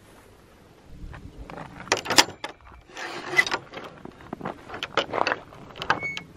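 Footsteps and trekking-pole taps on a gravel path, irregular clicks and scrapes, with knocks and rattles around a wooden field gate near the end.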